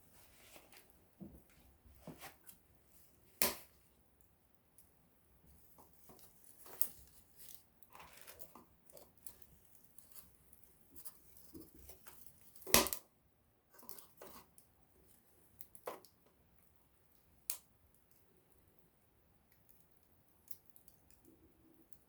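Small wood campfire crackling, with irregular sharp pops from the burning wood; the loudest pop comes about thirteen seconds in, another about three and a half seconds in, with faint hissing and small crackles between.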